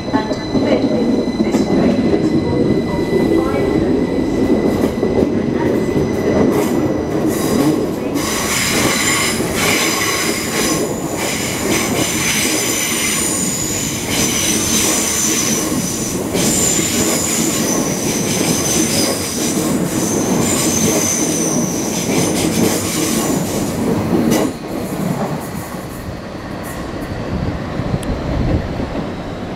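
A Class 332 Heathrow Express electric multiple unit pulls out of the platform with a low rumble of motors and wheels. From about eight seconds in, its wheels squeal high and click on the curving track as it passes. The sound eases off near the end as the train moves away.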